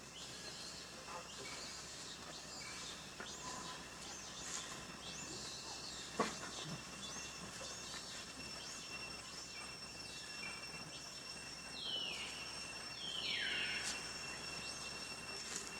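Outdoor ambience of insects droning on two steady high tones, with scattered high calls sweeping downward in pitch. Near the end, two louder calls fall steeply in pitch one after the other. A single sharp knock comes about six seconds in.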